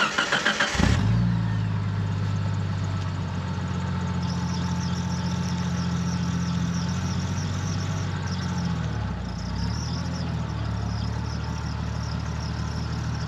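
A vehicle engine cranks with a quick run of pulses and catches within the first second, then runs steadily at an even low speed. Its pitch dips and picks up again about nine to ten seconds in.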